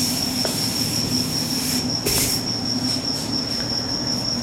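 A steady high-pitched whine over a low hum of room or recording noise. About two seconds in there is a short rubbing swish, a felt duster wiping the chalkboard.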